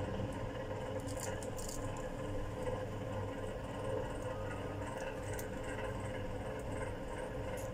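A steady low hum, with a few faint short crackles as crisp fried spring rolls (lumpia) are torn apart by hand.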